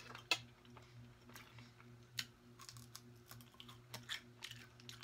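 Faint eating sounds: a few light clicks of a fork against a metal baking tray, the sharpest in the first half second, then scattered soft chewing ticks, over a steady low hum.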